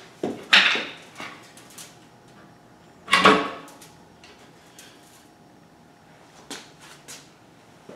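Two sharp knocks about two and a half seconds apart as the front case of a McCulloch TSIR-5190 radial engine is tapped to work it loose, the second ringing briefly; a few lighter clicks near the end.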